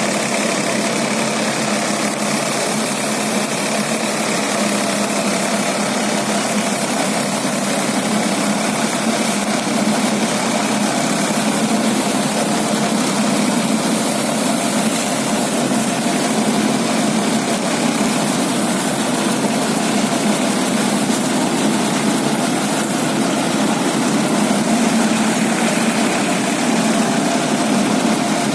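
Tractor-driven baler running steadily in the field: a continuous engine drone with a steady hum from the machinery, unchanging throughout.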